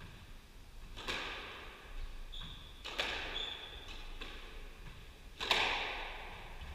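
Squash ball being hit around the court: a run of sharp hits and thuds echoing off the walls, about four or five in all, the loudest about two-thirds of the way through, with two short high squeaks in between.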